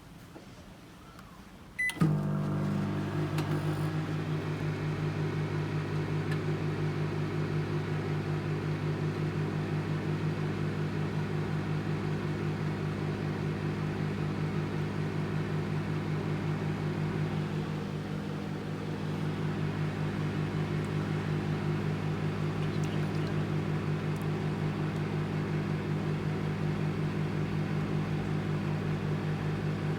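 Anko 700-watt microwave oven starting with a short beep about two seconds in, then running with a steady hum.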